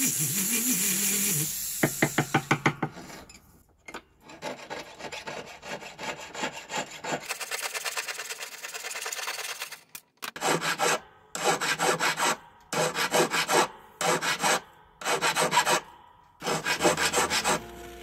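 A flex-shaft rotary tool's sanding band whining against a silver tube for about the first second and a half, then rapid rubbing strokes of metal being worked by hand. In the second half, a jeweler's saw cuts the silver tube in a string of short bursts of quick back-and-forth strokes with brief pauses between them.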